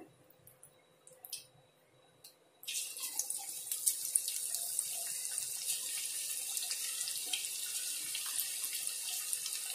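Marinated chicken pieces deep-frying in hot oil in a kadai. A steady high sizzle with fine crackles starts suddenly about two and a half seconds in, after a near-silent start.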